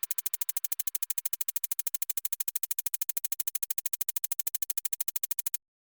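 Rapid, perfectly even electronic pulsing, about a dozen short pulses a second, that cuts off suddenly near the end.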